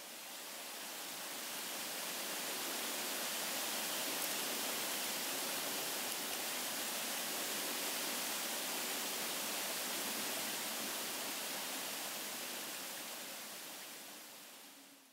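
Steady hiss of heavy rain, swelling in over the first couple of seconds and fading away near the end.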